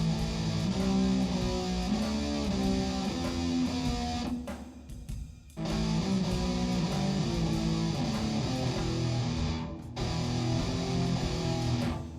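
Guitar music with played notes and chords, which breaks off briefly about four seconds in and again near ten seconds.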